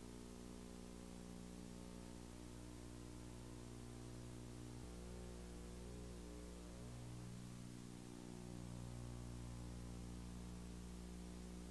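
Faint steady electrical hum with a layer of hiss, a buzz made of many stacked even tones.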